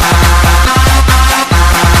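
Electronic dance music: a fast, steady kick drum over a sustained bass and held synth chords, with a brief break in the beat about one and a half seconds in.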